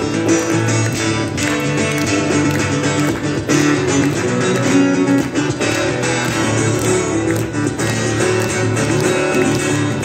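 Amplified steel-string acoustic guitar played solo, an instrumental piece of plucked notes and strummed chords.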